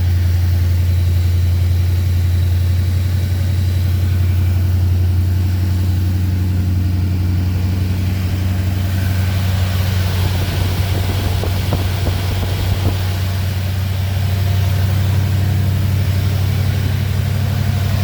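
1978 Chevrolet K10 pickup's engine idling steadily on its electric choke, warming up just after a cold start. A few light knocks about halfway through.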